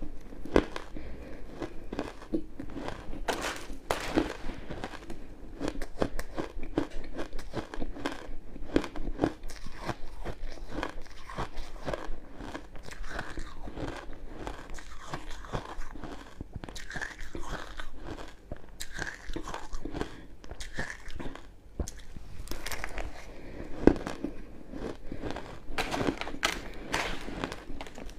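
Crushed ice being bitten and chewed close to the microphone: a dense, irregular run of crisp crunches and crackles.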